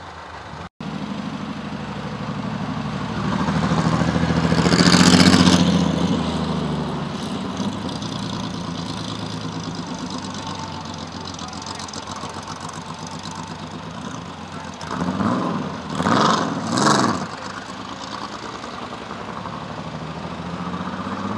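Off-road rally buggy engine running as it rolls slowly over dirt, swelling louder about four to six seconds in, then blipped three quick times near the end.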